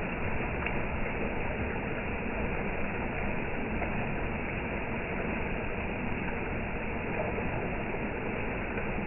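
Heavy rain falling steadily, an even hiss with no single events standing out.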